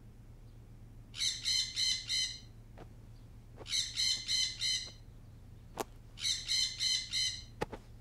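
Smartphone alarm going off with a bird-chirp tone: three bursts of four quick chirps, about two and a half seconds apart, with two short clicks between them.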